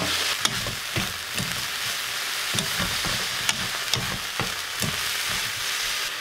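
Fish cake strips sizzling in a pan of bubbling soy-sauce seasoning as they are stir-fried, with light knocks from a wooden spatula against the pan every second or so.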